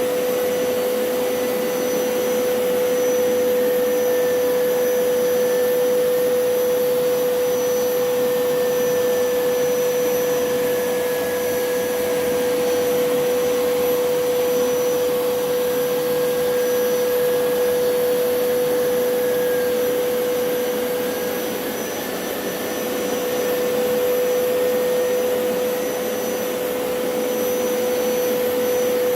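Hoover PowerScrub Elite carpet washer running steadily, a constant motor whine over the rushing of its suction. It grows briefly a little softer about three-quarters of the way through.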